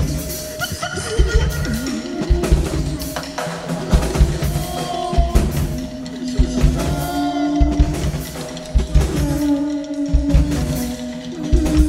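Live band music: a drum kit beat of bass drum and snare hits under long, wavering harmonica notes played through a microphone held cupped against the harmonica.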